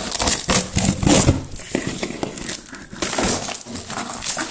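Clear packing tape being slit and ripped off a cardboard box, with the cardboard flaps and plastic wrapping rustling and scraping in a quick run of irregular strokes.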